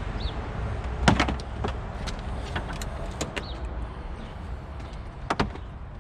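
Scattered sharp plastic clicks and knocks as a car's front bumper cover is worked loose from its clips, with the loudest cluster about a second in, a double knock near the end and two short high squeaks, over a steady low hum.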